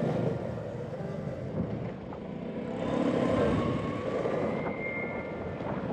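Boosted Board electric skateboard rolling over a rough street with traffic around it: a steady noisy rumble, with a whine rising in pitch about halfway through.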